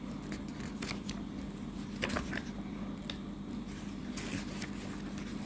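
Quiet, steady background hum with a few faint scattered clicks.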